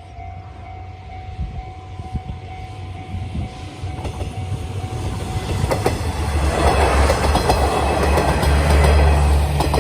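Two-car KiHa 110-series diesel railcar (KiHa 111 + KiHa 112) approaching and passing over a level crossing. The diesel engines and wheel noise grow louder, with wheels clacking over rail joints, and are loudest about nine seconds in. Through the first half a level-crossing warning bell rings steadily, then is drowned out by the train.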